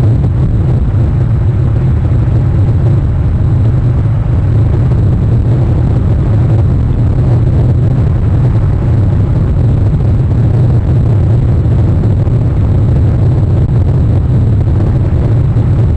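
Steady low rumble with a fainter hiss above it, from rain on an outdoor nest camera's microphone.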